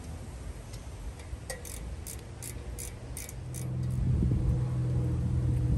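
Light, sharp metallic clicking, about three clicks a second, from a wrench being worked on the fan's rusted, seized cage fasteners. A low steady hum comes in about three and a half seconds in and grows louder.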